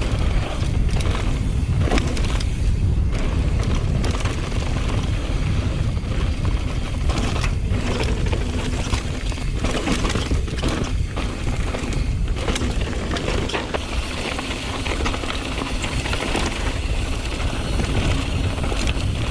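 Mountain bike riding down a rough dirt trail: steady wind rush on the microphone, with frequent clatters and knocks as the bike rattles over bumps.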